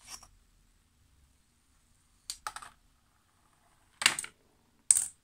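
Small hard parts of a homemade chain-reaction machine clicking and clattering: a tap at the start, a short run of taps about two and a half seconds in, a louder clatter about four seconds in and a sharp click near the end.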